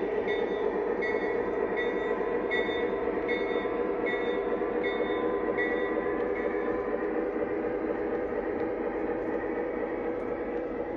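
Lionel O-gauge model freight cars rolling past on three-rail track: a steady rumble of wheels on rails. A short high tone repeats about every three-quarters of a second and stops about six and a half seconds in.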